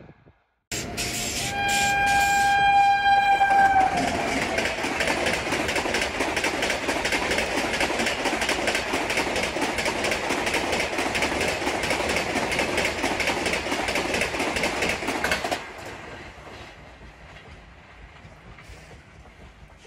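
A WAP-7 electric locomotive sounds a long horn blast that drops in pitch as it passes. The IRCTC Tejas Express coaches then rush past at about 130 km/h with a rapid clatter of wheels on the rails. The noise cuts off sharply about fifteen seconds in, leaving a quieter rumble.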